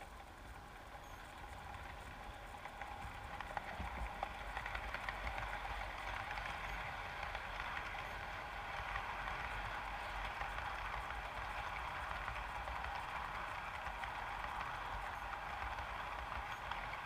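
Model Milwaukee Road Hiawatha passenger train running on the track, wheels rolling on the rails. The sound grows louder over the first few seconds as the train approaches, then holds steady as the passenger cars go by.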